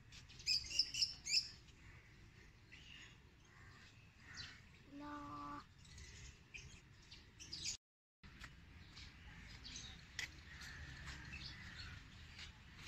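Birds chirping: a quick run of high chirps about half a second in, then fainter scattered calls. A short steady tone sounds a little past five seconds in, and the sound drops out completely for a moment near eight seconds.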